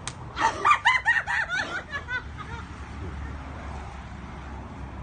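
A sharp click, then a burst of high-pitched cackling laughter, about six quick 'ha' pulses a second, lasting about a second and a half before it fades.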